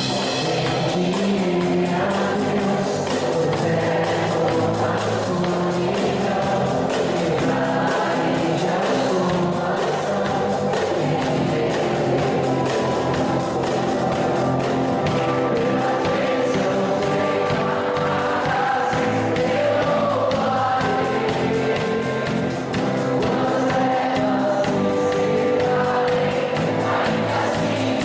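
Live rock band performance with sung vocals over guitars and drums, the singing full enough to sound like several voices.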